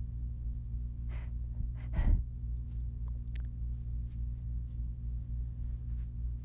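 A person breathing audibly: a short breath about a second in and a louder gasp or sigh about two seconds in, over a steady low hum, with a few faint clicks afterwards.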